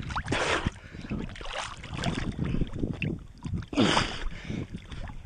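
Water lapping and splashing against a GoPro held at the surface, in a few uneven bursts over a low rumble.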